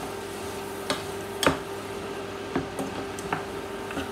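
Carrots, leeks and celery sizzling gently in melted butter in a stainless steel saucepan while a wooden spoon stirs them, knocking against the pan about five times, the loudest knock about one and a half seconds in.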